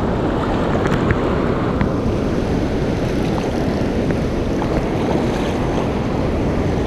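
Steady wind buffeting the microphone, a rough, even rumble with no pitch, with a few faint ticks.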